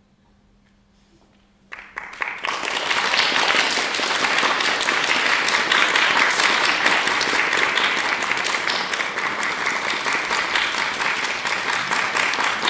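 Near silence with a faint hum, then an audience breaks into applause about two seconds in, and the applause carries on at a steady level.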